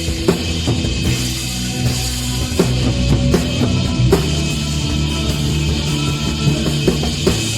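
Rock band playing a sound check: a drum kit keeps up a beat of sharp hits over held low notes from bass and guitar.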